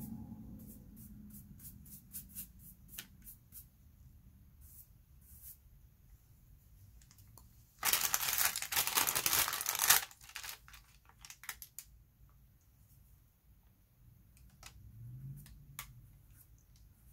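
Pastel studio work on paper: scattered light ticks and scratches of brushes and hands on the drawing and its protective sheet, with one loud paper rustle lasting about two seconds, around eight seconds in.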